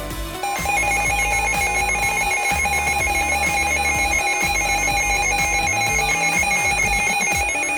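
Emergency Alert System alert tones for a required weekly test: a loud, steady electronic alert tone that starts about half a second in and holds for about seven seconds, with music still playing underneath.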